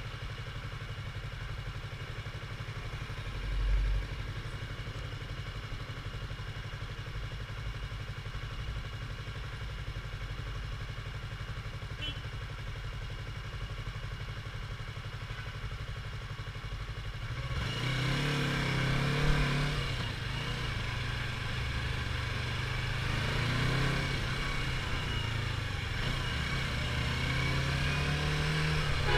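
Yamaha R25's parallel-twin engine on its stock exhaust, running steadily at a low hum, then a little over halfway through getting louder, its pitch rising and falling with the revs.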